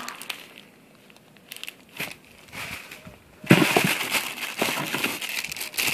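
Clear plastic zip-top bags crinkling as a hand rummages through them. Faint scattered crinkles at first, then loud, continuous rustling from about three and a half seconds in.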